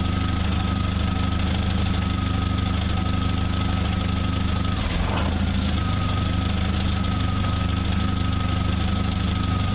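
1995 Jeep Wrangler YJ engine idling, with a steady high whine over the engine note; about five seconds in the running falters briefly. The owner traces the stumbling and stalling to a bad connection at the ignition coil's plug or its terminals.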